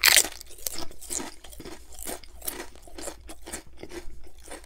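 A thick potato chip bitten with a loud crack at the start, then chewed with repeated crunching, about two to three crunches a second.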